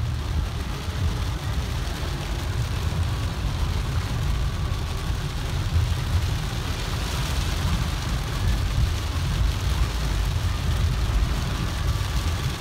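Car cabin noise while driving in heavy rain: a steady low engine and road rumble with an even hiss of rain and wet tyres.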